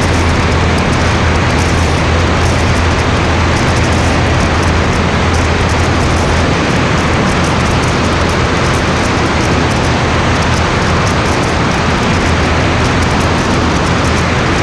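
Steady drone of a light aircraft's engine and propeller in cruise, heard from a camera mounted under the wing, with air rushing past. A deep, even hum with a few steady overtones, unchanging throughout.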